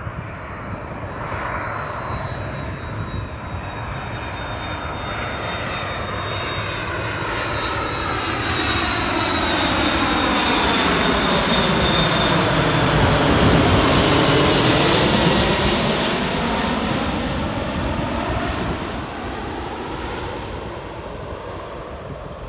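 Airbus A330-300 jet airliner on final approach with its landing gear down, flying low overhead: a jet engine rush builds to a peak a little past halfway, with a sweeping, phasing quality and a thin high whine that drifts slightly lower, then fades as it moves away.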